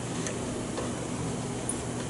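A few faint, light clicks of small metal parts being handled while a pneumatic cylinder is fitted onto a training panel, over a steady low hum.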